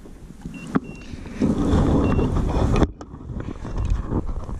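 Rumbling handling noise on a chest-mounted camera's microphone, with a sleeve rubbing close against it. It starts about a second and a half in, cuts off sharply just before three seconds, then builds up again.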